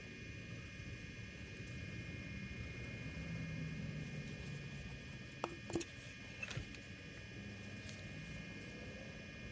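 Faint handling noise: a few small sharp clicks a little past halfway, over a steady low hiss and a faint high hum.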